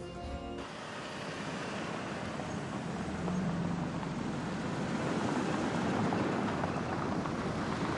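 A car pulling away: a steady rush of engine and tyre noise that swells gradually and then holds.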